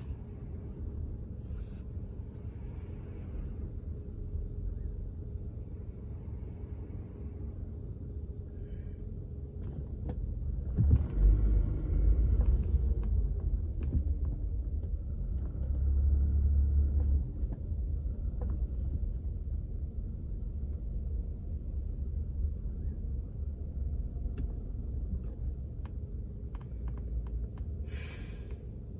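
Low rumble of a car's engine and road noise heard inside the cabin as the car creeps along in a traffic queue. It swells louder for a few seconds in the middle, and a short hiss comes near the end.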